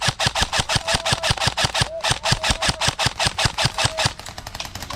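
Airsoft electric gun firing on full auto, a steady rattle of about nine shots a second with a brief break about two seconds in; the shots turn fainter and quicker near the end.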